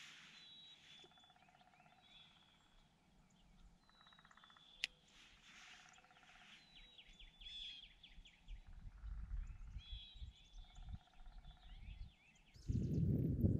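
Wild birds chirping and trilling faintly, calls repeating every second or two. A single sharp click comes about five seconds in, and a burst of low noise near the end.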